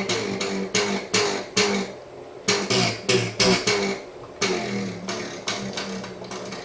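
Acoustic guitar strings struck in repeated strums, about two to three a second, with short pauses between groups.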